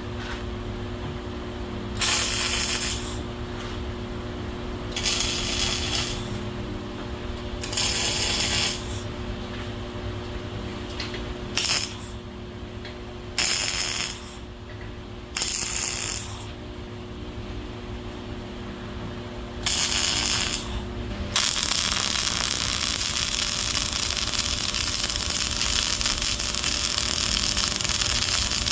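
A power tool run in short bursts of about a second, seven times, as the stove's flue pipe is fastened. From about three-quarters of the way through, a steady hiss runs on without a break.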